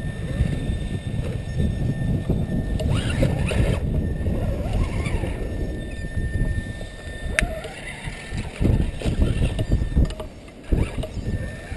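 Wind rumbling on the microphone over an Axial Wraith RC rock crawler's 27-turn brushed electric motor, whose thin whine comes and goes as it is throttled up the rocks. A single sharp knock sounds about seven seconds in.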